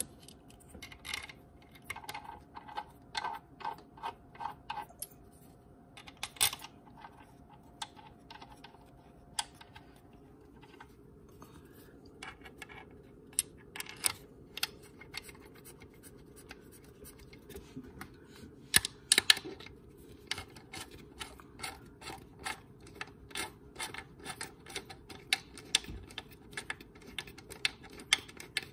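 Socket ratchet clicking in quick runs as it drives 10 mm bolts into the transmission case, with scrapes and taps of bolts being started by hand.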